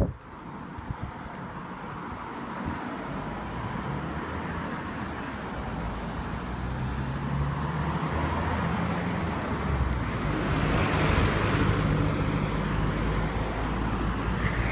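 Road traffic at a street intersection: car engines and tyres going by, growing louder, with one vehicle passing close about eleven seconds in.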